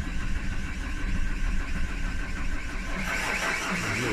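Starter cranking the 2010 Vauxhall Insignia's diesel engine in an even rhythm without it catching. A brighter hiss joins about three seconds in. The no-start was traced to a weak ('lazy') fuel pump.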